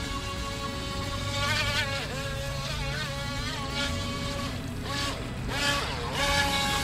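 JJRC Pentium S1 RC speedboat's small brushed electric motor running with a high whine. Its pitch dips and climbs several times, most deeply about five to six seconds in.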